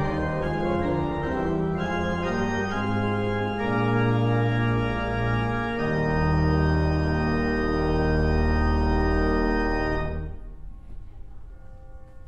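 Pipe organ playing full sustained chords that move every second or so, then holding one long final chord. The chord is released about ten seconds in, and the sound falls to quiet room noise.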